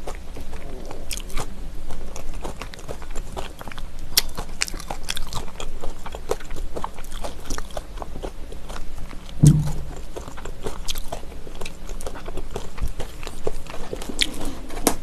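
Close-miked chewing of raw trout and spicy dressed vegetables: a steady run of quick wet mouth clicks and small crunches, with a brief low hum about nine and a half seconds in.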